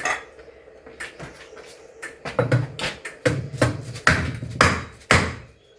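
A small 1.5 lb hammer knocking an aluminium frame tube home into its plastic connector: a series of about eight sharp blows, most of them from about two seconds in, until the joint is seated.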